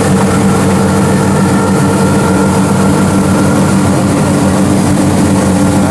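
Kubota PRO75G combine harvester's 75-horsepower four-cylinder turbo engine running steadily at an even speed.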